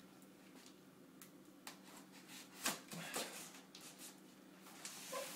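Long kitchen knife slicing the packing tape on a cardboard box: a few short scraping cuts and knocks against the cardboard.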